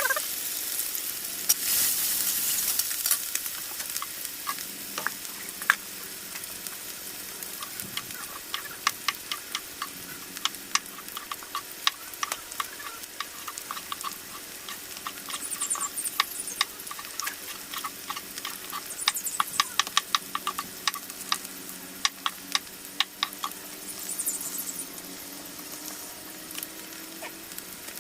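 Food sizzling in a frying pan while it is stirred, with many sharp clicks of the spoon or spatula against the pan, densest through the middle stretch.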